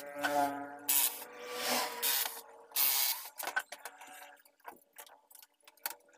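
Scraping and rubbing on a television's sheet-metal back panel as an electric screwdriver and its cables are handled, in several short bursts, then a few lighter clicks and knocks.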